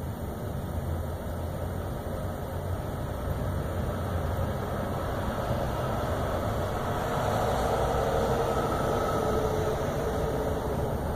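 Low, steady engine rumble of a vehicle running, growing a little louder partway through.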